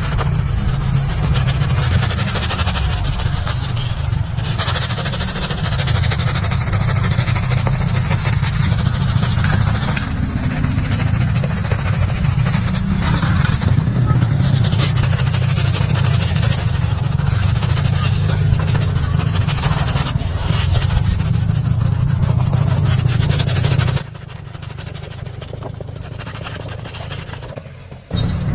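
A barber's small electric grinding tool buzzing steadily, a low motor hum with a rough edge, that stops about four-fifths of the way through, leaving a quieter sound.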